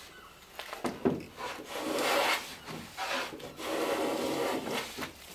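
Small hand plane shaving the top edge of a wooden clinker boat plank to bevel it: a short stroke about a second in, then two longer, even strokes about two and four seconds in.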